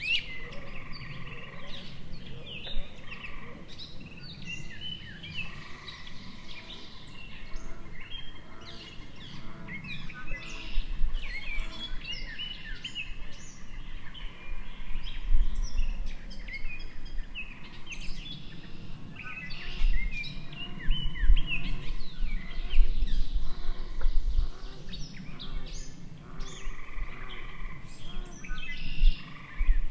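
Swamp soundscape: many birds calling and chirping at once, overlapping throughout, with intermittent low rumbles underneath.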